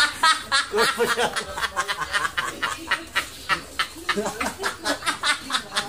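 Two people laughing hard together in quick, repeated ha-ha bursts.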